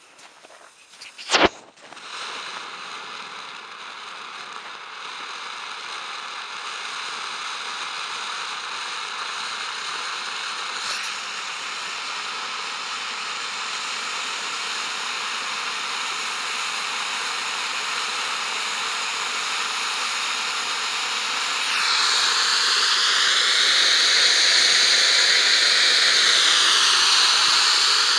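Pyrostar Gold Dragon firework fountain (a ground 'volcano') spraying sparks with a steady hiss that grows gradually louder, after a sharp pop about a second and a half in. In the last six seconds it gets louder again and a wavering, whistle-like tone joins the hiss.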